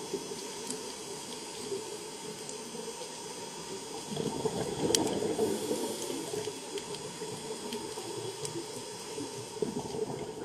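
Steady watery hiss of underwater ambience, swelling for a couple of seconds around the middle, with one sharp click about five seconds in.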